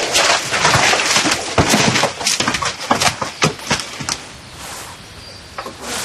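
Pack mules and a man moving through leafy forest undergrowth: a dense run of rustling, crackling and knocks for about four seconds, then it drops to a quieter rustle.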